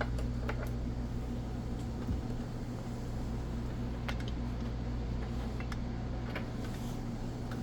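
Steady low electrical hum, like a room fan or appliance, with a few faint light clicks scattered through it.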